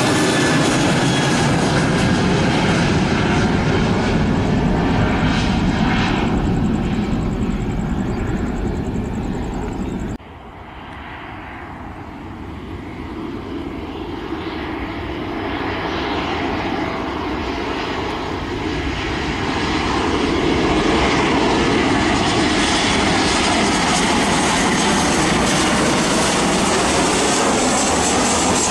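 Boeing 737 jet engines: a 737 climbing out after takeoff, its engine noise loud and slowly fading, breaks off abruptly about ten seconds in. Then a Boeing 737-900ER on final approach, its jet engine noise growing steadily louder as it nears and holding loud for the last several seconds.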